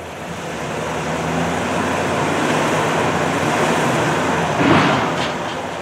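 GMC pickup truck crawling slowly over a rocky gravel trail: its engine running at low speed under the crunch and rumble of tyres over stones, with a brief louder crunch about four and a half seconds in.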